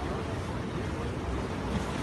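Sea surf washing and breaking against rocks, a steady rushing noise, with wind buffeting the microphone.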